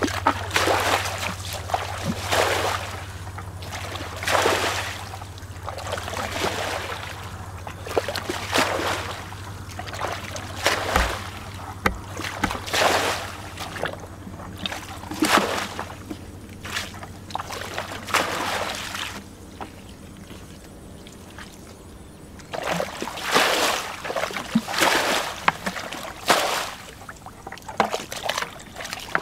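Muddy water being bailed out of a shallow pool with a plastic bucket: a splash about every two seconds as each bucketful is scooped and thrown out, with a pause of a few seconds about two-thirds of the way through.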